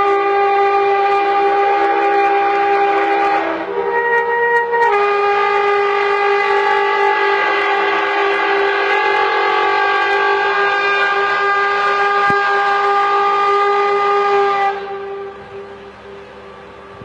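Bulldozer giving off a strange, loud, steady pitched tone made of several notes at once. The notes shift twice around four to five seconds in and stop abruptly near the end.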